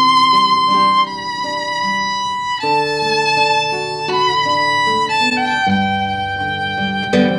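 Violin playing a slow instrumental melody of long held notes with vibrato, each about a second, over acoustic guitar accompaniment. A strummed guitar chord sounds near the end.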